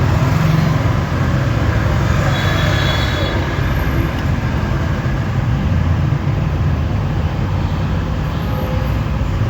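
Basook hair dryer running with a steady blowing noise and a heavy low rumble.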